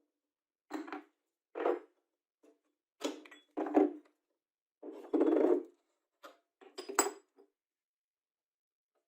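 Hard objects being handled on a work surface: about eight short, irregular knocks, scrapes and clinks, with a sharp click about seven seconds in.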